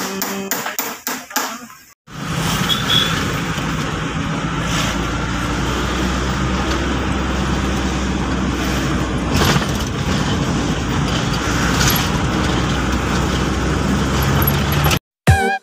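Steady engine hum and road noise of a moving vehicle, heard from inside the cab.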